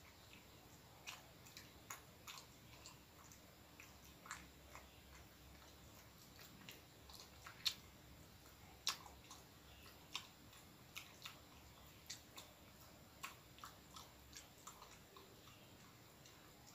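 A person chewing a mouthful of soft chocolate-and-cheese-filled bread roll: faint, irregular mouth clicks, with two louder ones around the middle.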